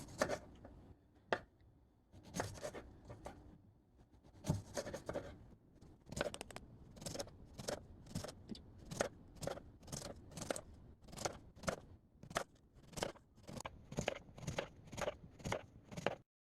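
Food being cut with a blade: a series of short, crisp cutting strokes, a few irregular ones, then a steady run of about one and a half a second, stopping abruptly near the end.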